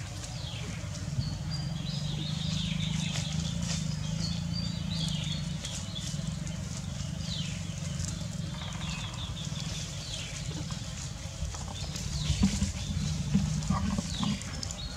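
Dry leaf litter rustling and crackling under monkeys' hands and feet, with louder crunches near the end. Short high chirps sound repeatedly over it.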